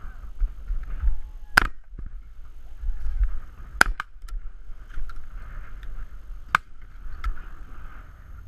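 Shotgun shots during a driven red grouse drive: three sharp reports, at about one and a half, four and six and a half seconds in, with a few fainter ones between, over wind rumbling on the microphone.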